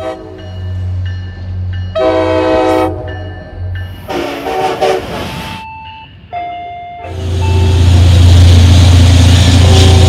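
Diesel locomotive multi-chime air horn sounding in loud blasts, the first a clear chord about 2 s in. Around 6 s comes a station platform's warning chime of a few single steady tones. From about 7 s the loud, steady rumble of an approaching diesel locomotive takes over.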